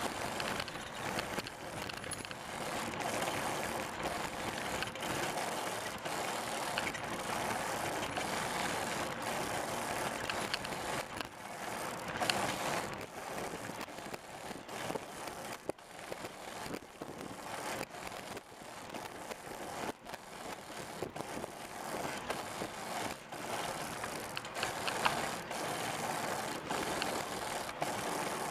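Prototype 'Pursuit' hand-powered tadpole trike riding along asphalt: a steady rolling hiss from tyres and drivetrain, with frequent irregular clicks and rattles from the machine as the hand levers are worked.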